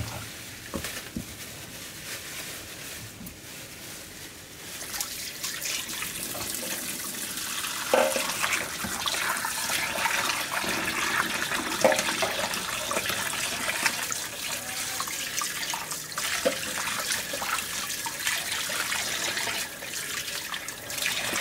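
Tap water running into a bowl as pieces of katla fish are rubbed and rinsed by hand, with splashing and a few sharp knocks. The flow gets louder about five seconds in.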